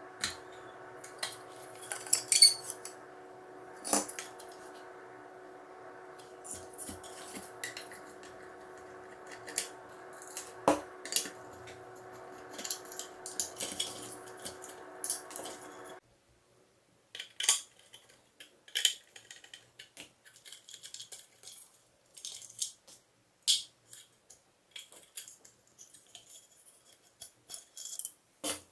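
Plastic parts of a bathroom exhaust fan clicking and tapping as it is taken apart by hand, with a screwdriver working inside the plastic housing: sharp, irregular clicks and knocks. A steady hum in the background stops suddenly about halfway through.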